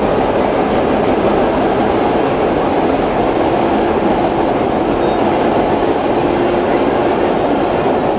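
Vintage R6 subway car running at speed through the tunnel, heard from inside the car: a loud, steady rumble and rattle of wheels and car body, with a faint held tone in the middle.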